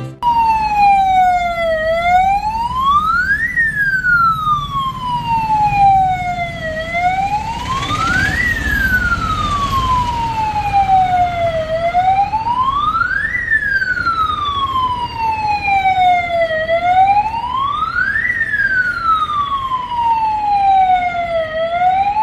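ATM security alarm siren wailing loudly, set off for no known cause. Its electronic tone rises quickly and falls slowly, about once every five seconds, over a steady low background rumble.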